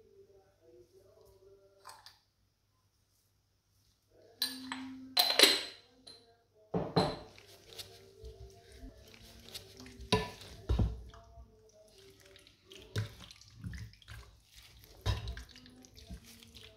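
Kitchenware being handled: dishes and utensils clinking and knocking in a run of sharp clatters and low thuds, starting about four seconds in after a couple of seconds of silence.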